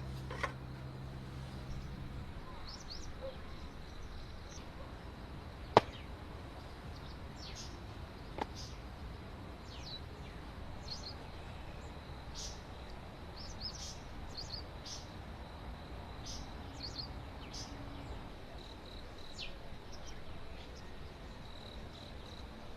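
Woodland ambience: small birds giving short, high chirps scattered throughout over a faint, steady high tone. A low hum stops about two seconds in, and there is a sharp click about six seconds in and another a couple of seconds later.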